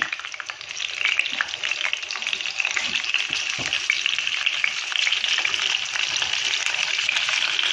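Pieces of tilapia and knifefish frying in hot oil in a pan: a steady, dense sizzle with many small crackling pops, growing a little louder after the first second.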